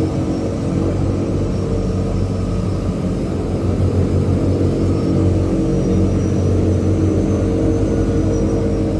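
Steady drone of a de Havilland Canada DHC-6 Twin Otter floatplane's PT6A turboprop engine and propeller, heard from inside the cabin as the plane moves across the water.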